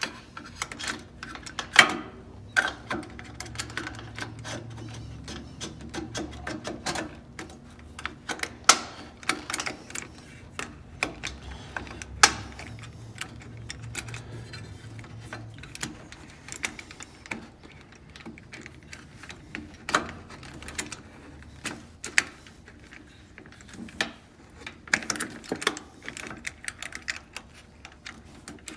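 Irregular clicks, taps and clinks of small metal parts being handled: bolts and T-nuts knocking against the aluminium rail as they are slid into the channel of a quilting machine carriage's rear axle, with a few sharper knocks.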